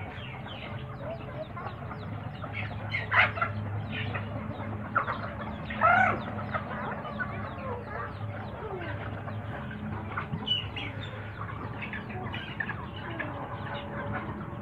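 A flock of free-range chickens clucking and calling as they peck at food, with two louder calls about three and six seconds in, over a steady low hum.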